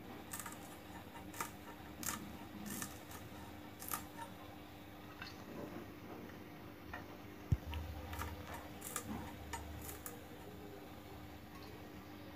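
Green chillies being sliced on a boti blade, with crisp, irregular clicks and snicks roughly once a second as the pieces are cut and dropped into a brass plate. One louder knock comes a little past halfway. A faint steady hum runs underneath.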